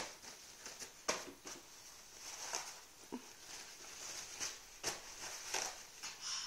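Paper towel being pulled off a roll and shaken, rustling and crinkling in irregular bursts, with a few soft knocks.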